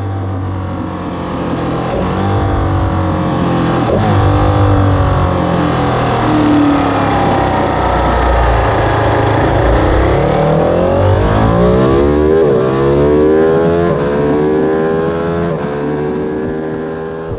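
Ducati 959 Panigale's Superquadro V-twin accelerating at speed, its pitch climbing and dropping back several times as it shifts up through the gears, with the shifts coming closest together in the second half.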